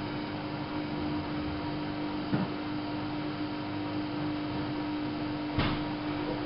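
Whirlpool AWO 5346 washing machine running mid-cycle: a steady mechanical hum with a clear held tone, broken by two brief knocks, one about two seconds in and one near the end.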